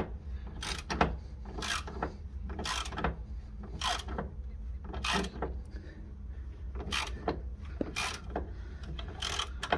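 Socket ratchet clicking in short back-and-forth strokes, about one burst of clicks a second, as it undoes a car's suspension drop link nut.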